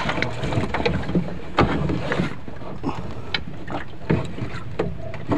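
Steady low rumble of wind and sea around a small wooden outrigger fishing boat, with scattered short knocks and clicks.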